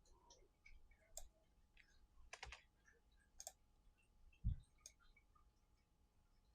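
Near silence with a handful of faint computer mouse clicks, about a second apart, and a soft low thump about four and a half seconds in.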